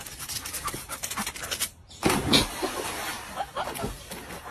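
A dog panting. About two seconds in, after a brief break, comes a sudden loud burst as a dog leaps into a swimming pool.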